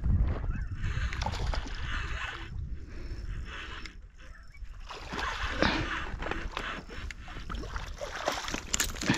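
Water splashing as a hooked fish is drawn through the shallows to a pebble shore, over a low rumble on the microphone. Scattered sharp clicks and clatter, loudest about halfway through and again near the end.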